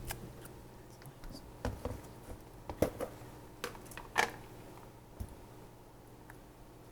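Irregular small clicks and taps, like objects being handled, with the two loudest about three and four seconds in.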